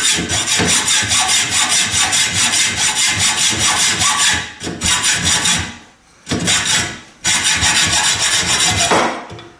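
Hacksaw cutting through a solid stainless steel rod held in a vise, in rapid, hard back-and-forth strokes, with two short pauses in the second half.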